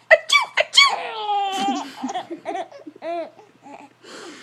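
Baby laughing in a string of short high-pitched squeals, with one longer falling squeal about a second in and a few more laughs after it, the last ones fainter.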